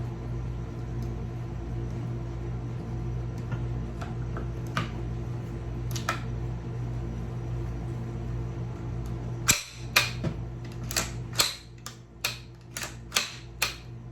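Sharp metallic clicks and snaps of a CZ Scorpion 3 Plus pistol being put back together: two faint clicks partway in, then about ten loud ones in quick succession over the last few seconds. A steady low hum runs underneath.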